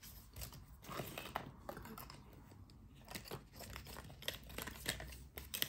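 Faint crinkling and light clicks as small craft pieces (wooden cutouts, a plastic sticker sleeve and paint tubes) are handled and set down.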